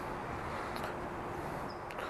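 Quiet outdoor background noise with a faint steady hum that stops shortly before the end, and a couple of soft clicks. No shot is fired.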